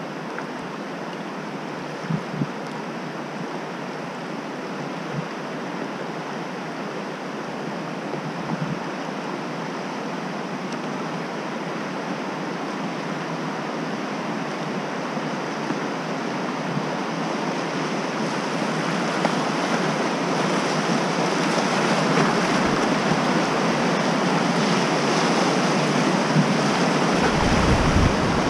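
Rushing water of a river rapid, growing steadily louder as the kayak closes on it and reaches the whitewater near the end.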